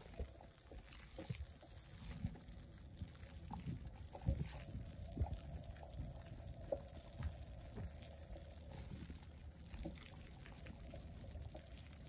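Footsteps crunching in fresh snow, soft and irregular, over a faint low rumble of a quiet snowy street.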